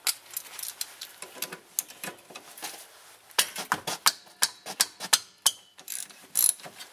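3/8-inch hand ratchet clicking in short, irregular runs as it loosens a 12 mm rear brake caliper bolt, with a few metal-on-metal clinks.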